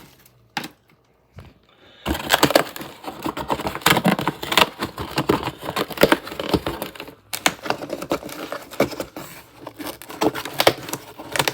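Hands opening and unpacking a cardboard shipping box: a busy run of knocks, scrapes and paper rustling that starts about two seconds in, after a near-silent moment.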